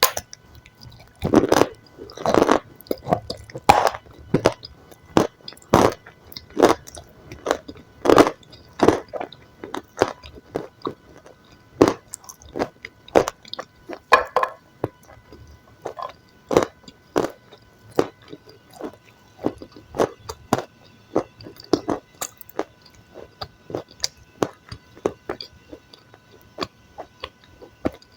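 Close-miked chewing and biting of food, mukbang ASMR style: irregular crunchy, wet bites and chews about once or twice a second.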